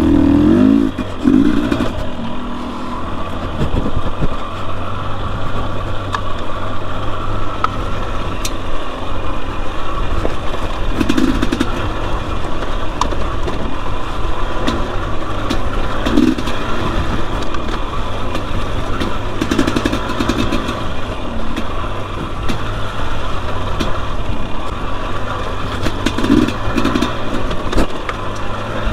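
Two-stroke single-cylinder engine of a 2021 Husqvarna TE250i dirt bike running under way, with the throttle opened in short bursts several times over steady engine noise.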